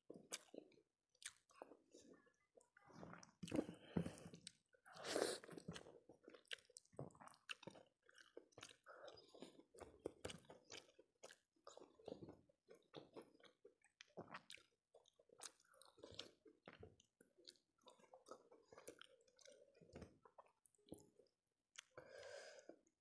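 Close-miked chewing and mouth sounds of a person eating rice and fish curry by hand, many short faint clicks, a little louder about four to five seconds in.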